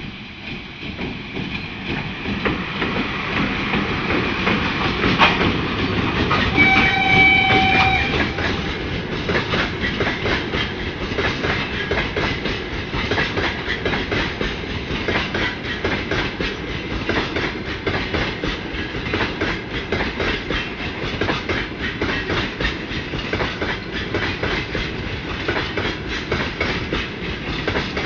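Freight train drawing closer and passing, its noise building over the first few seconds. About seven seconds in the locomotive gives a short horn blast of about a second and a half, followed by the steady rapid clatter of wagon wheels over rail joints.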